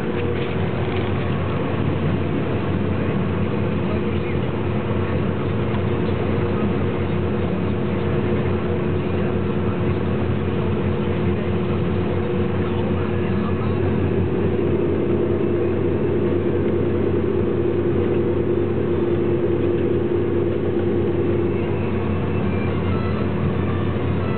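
Sugar beet harvester running steadily while its elevator conveys beets into a trailer alongside, heard from inside the cab as a constant engine drone with a steady hum.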